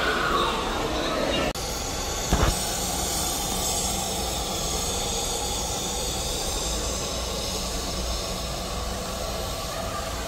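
Steam locomotive standing at the platform, hissing steam steadily, with a single thump about two seconds in.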